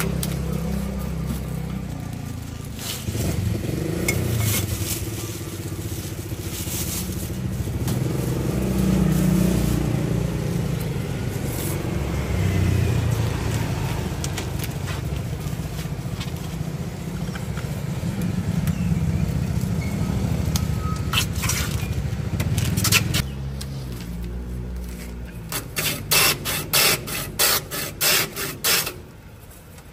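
Hand ice shaver scraped back and forth over a block of ice: about eight quick strokes, roughly two a second, near the end. Before that, a steady low rumble of passing road traffic.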